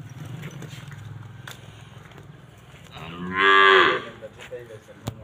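A cow mooing once: a loud call about three seconds in, lasting about a second and falling in pitch at the end, over a steady low hum.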